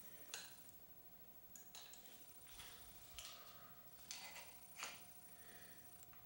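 Near silence with a few faint, short clicks and rustles: hands and an Allen key handling a brake lever as it is fitted and tightened into the end of an aero basebar.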